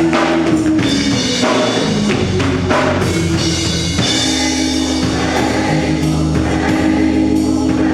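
Live gospel church music: long held chords over a drum kit, with singing voices.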